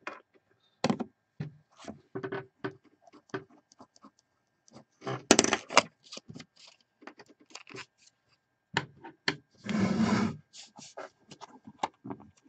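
Handling noises from hard plastic card holders and a metal briefcase: scattered clicks, taps and knocks, a louder clatter about five seconds in, and a longer scrape around ten seconds.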